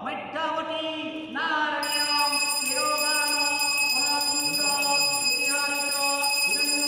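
Puja mantra chanting: a voice in short rising and falling phrases, then held notes like a sung melody. A steady high ringing tone comes in about two seconds in.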